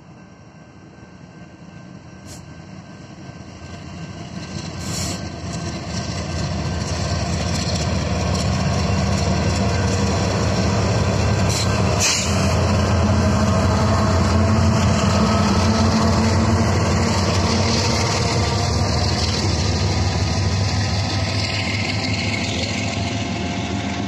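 Union Pacific diesel locomotives, a three-engine light move with no cars, passing through a road crossing. The engines give a deep rumble that builds over the first ten seconds, is loudest in the middle and fades toward the end. No horn is sounded.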